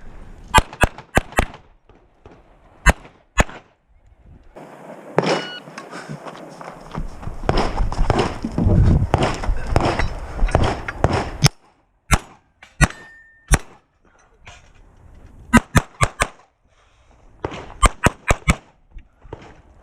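Pistol shots fired in a course of fire, mostly as quick pairs, in two runs with a longer stretch of rustling noise between them.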